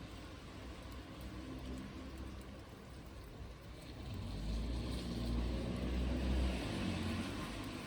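Low engine rumble of a motor vehicle, growing louder about halfway through and easing off near the end.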